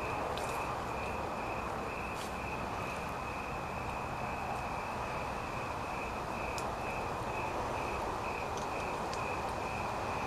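A cricket chirping steadily, about four even chirps a second, over a steady background noise, with a few faint clicks.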